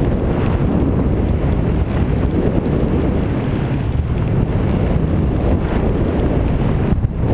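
Loud, steady wind buffeting a microphone carried down a ski run at speed, with a brief dip near the end.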